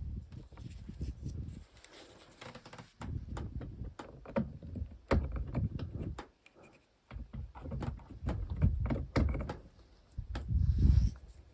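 Hands working on a car door and its handle parts: irregular sharp clicks and knocks with dull thumps, coming in several short bursts with pauses between.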